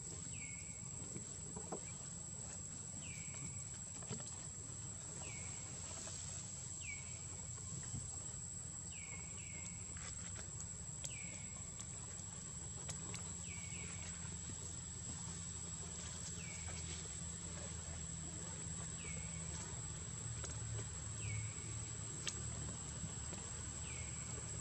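Outdoor ambience: a steady high insect whine, with a short falling chirp, likely a bird call, repeating every couple of seconds over a low rumble.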